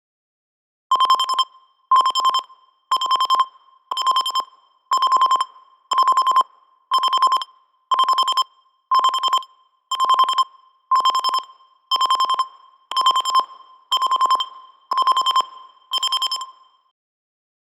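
Phone alarm tone in the classic digital alarm-clock style: a quick run of electronic beeps at one steady pitch, repeated once a second about sixteen times, starting about a second in.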